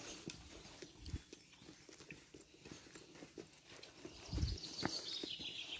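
Footsteps on a dirt forest path, a few soft irregular thuds. From about four seconds in, leaves and branches brush past close by.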